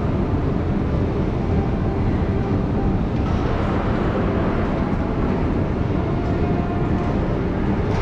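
Passenger train running, a steady, even noise with no let-up.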